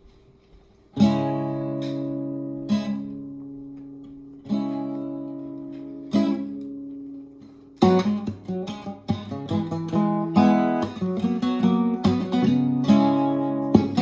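Acoustic guitar playing an instrumental intro. Single chords are struck about every two seconds and left to ring out and fade, then from about eight seconds in the playing turns into a busier, steady strummed rhythm.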